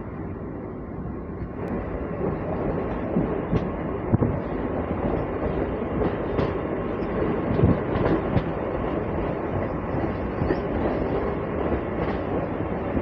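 MMTS electric local train running on the track, heard from its open doorway: a steady rumble of wheels on rails with a few irregular clunks as the wheels cross rail joints.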